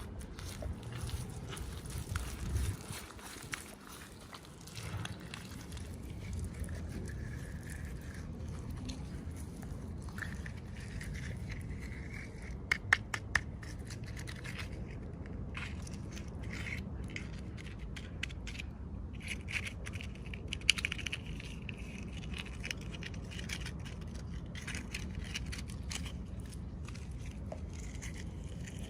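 Hands opening and handling small plastic toy packaging: scraping and crinkling, with a quick run of sharp clicks about halfway through.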